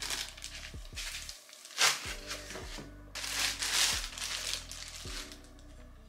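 Clear plastic packaging bag crinkling in several bursts as a wooden stand is pulled out of it, the sharpest just before two seconds in and the longest between three and four seconds in, over soft background music.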